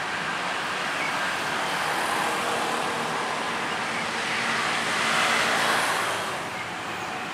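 Road traffic noise, a steady wash of passing vehicles that swells about five seconds in and then drops off near the end.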